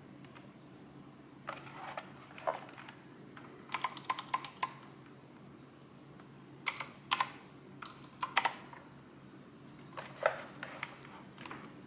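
Keys being typed on a Dareu EK145 keyboard: sharp clacking keystrokes in short irregular runs, one quick flurry of about eight strokes, separated by brief pauses.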